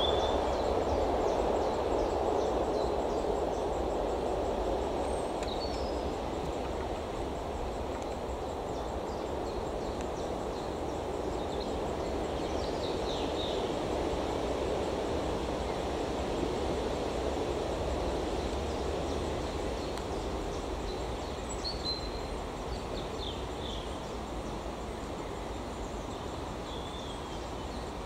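Small birds in the surrounding woodland give short, high chirps now and then over a steady low rushing background that slowly grows quieter.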